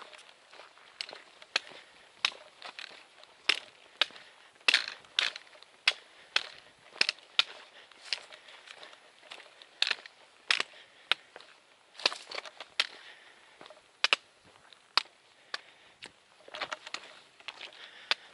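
A hiker's footsteps on a trail: sharp, irregular clicks and crunches, about one to two a second.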